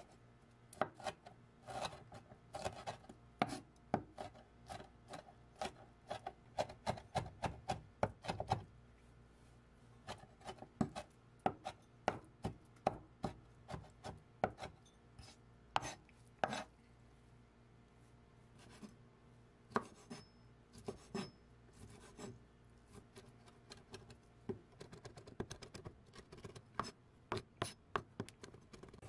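Cleaver chopping frozen mixed vegetables, and later diced ham, on a wooden cutting board: quick runs of knife knocks on the board, with a pause of about two seconds a little past the middle.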